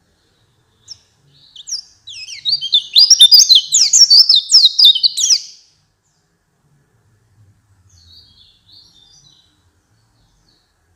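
White-eye (pleci) singing a rapid, high twittering song for about four seconds, followed by a few faint chirps.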